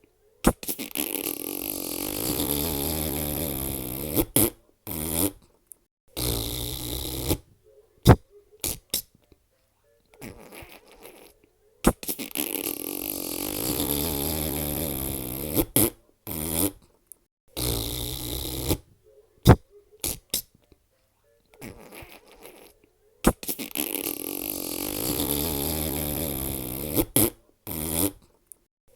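Fart sound effects: a long, wavering fart lasting about four seconds, then several short farts and sharp pops. The same sequence repeats about every eleven and a half seconds, three times over.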